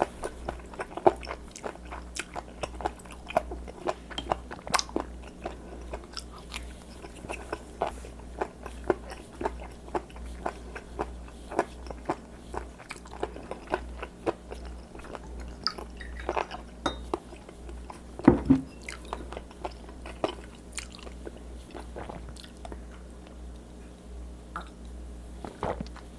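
Close-miked chewing and biting of raw spoon worm, with many small wet clicks and crunches. There is one louder, dull thump about two-thirds of the way through.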